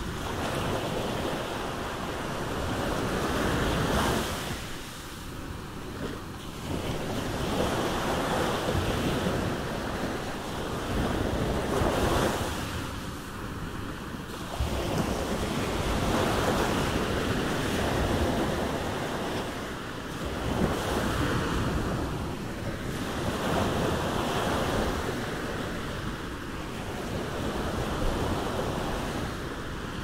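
Surf on a sandy beach: a continuous wash of breaking waves that swells and eases every few seconds, spread from a low rumble up to a high hiss.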